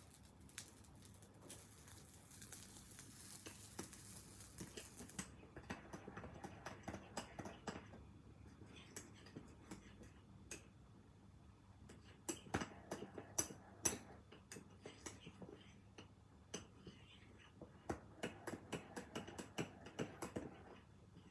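Liquid poured into a ceramic mug of cocoa powder for about five seconds, stopping abruptly. A metal spoon then stirs the cocoa, clinking against the inside of the mug in quick runs of light ticks.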